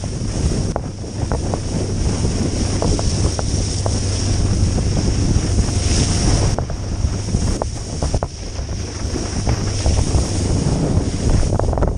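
Wind buffeting the microphone over the rush of a boat's churning wake and spray, with a steady low rumble and scattered sharp splashes as the wakeboard cuts through the water.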